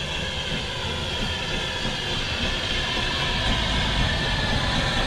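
The narrow-gauge steam locomotive Palmerston, a George England engine of 1864, runs in slowly toward the listener, its sound growing gradually louder.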